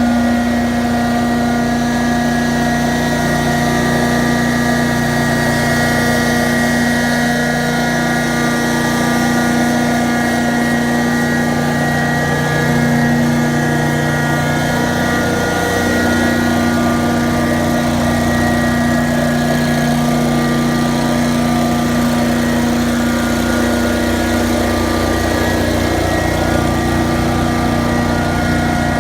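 Prochem Blazer XL truckmount running steadily, its engine and belt-driven vacuum blower giving a constant drone with a steady whine, and a brief shift in pitch about halfway through.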